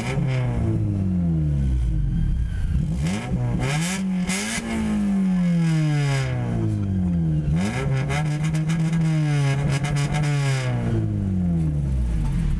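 Car engine revving up and dropping off repeatedly as it pulls through the gears, with crackling at times.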